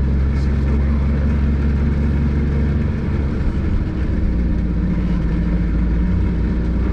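1968 milk truck's engine running steadily as the truck drives, heard from inside the open cab. Its note shifts about three seconds in.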